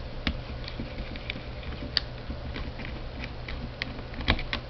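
Small irregular clicks and ticks of a screwdriver working the screws out of an HP Compaq nc8230 laptop's inner frame, with a few sharper taps: about a third of a second in, around two seconds in and near the end.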